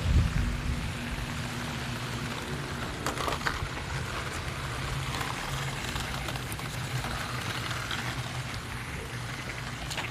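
A remote-control toy car's electric motor runs with a steady low hum under a continuous rain-like hiss.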